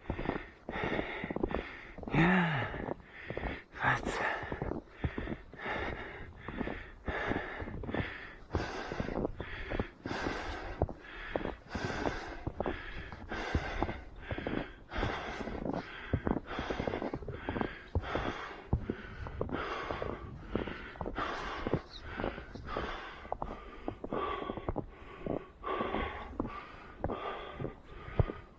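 A runner's rhythmic breathing from exertion, one breath a little more often than once a second.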